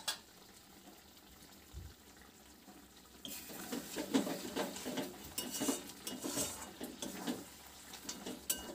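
Spatula stirring and scraping chicken pieces through thick gravy in a metal kadai, with wet squelches and clinks against the pan, starting about three seconds in. Before that there is only faint room sound, with a brief click at the very start.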